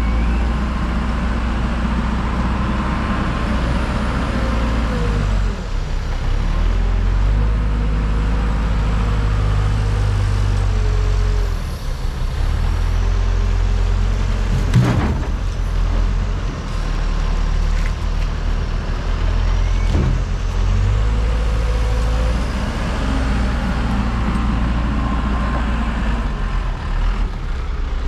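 Diesel engine of a JLG G10-55A telescopic loader running under load, its speed rising and falling as the machine drives and works its boom with a load of logs. A sharp knock comes about halfway through, and a lighter one a few seconds later.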